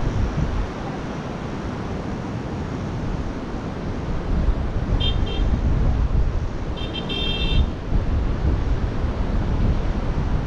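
Steady low rumble of wind buffeting the microphone over beach surf, with two brief high-pitched chirps about five and seven seconds in.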